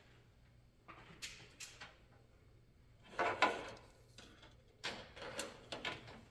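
Wiring harness sections being handled and shifted about: a string of irregular rustles and knocks, the loudest about three seconds in.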